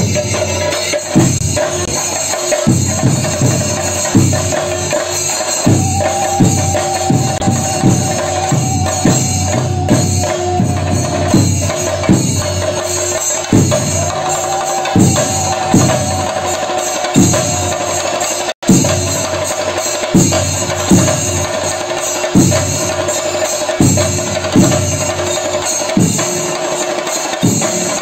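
Temple ritual percussion: drums beaten in a steady rhythm, the loud strokes coming a little more than once a second over continuous cymbal clashing, with a held, slightly wavering tone sounding above. The sound cuts out for an instant about two-thirds of the way through.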